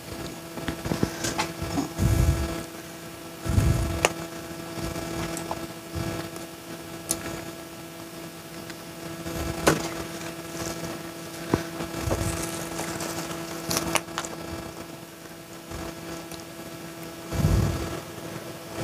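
Hands working a nylon gill net on a concrete floor while fish are picked out of it: scattered light clicks and a few dull low thumps, about two and four seconds in and again near the end. Under it runs a steady machine hum.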